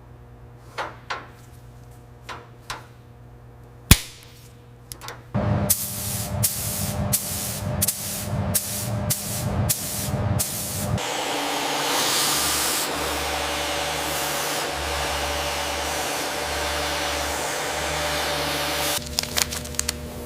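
Workshop tool sounds: a few light clicks and one sharp click, then a run of quick knocks over a low hum, then about eight seconds of steady hissing that stops near the end, followed by a few more clicks.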